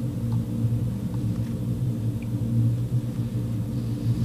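Steady low background hum with a few faint soft ticks.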